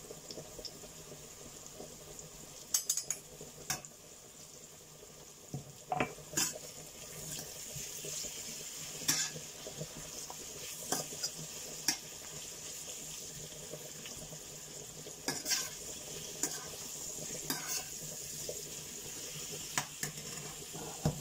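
Sliced zucchini, bell pepper and onion sizzling in oil in a stainless steel frying pan, with a metal slotted skimmer stirring them and clinking against the pan now and then.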